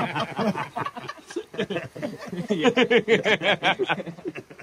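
Several men laughing heartily together, in quick repeated bursts that are loudest in the second half.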